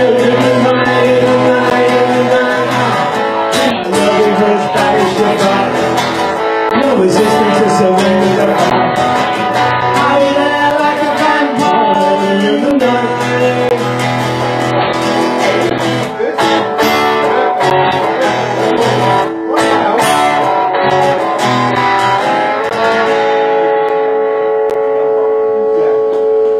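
Live performance of electric and acoustic guitars with a singing voice. Near the end the song settles on a held, ringing chord.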